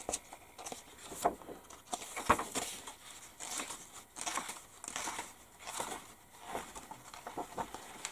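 Paper rustling and crinkling with scattered light taps and clicks as an instruction booklet and decal sheets are handled and leafed through.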